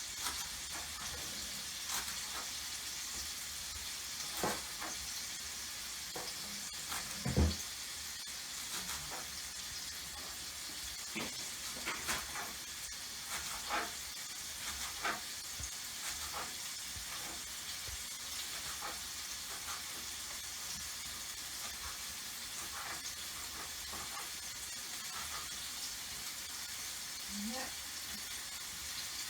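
Lamb frying in a pan: a steady sizzling hiss, with scattered short knocks and clicks, the loudest about seven seconds in.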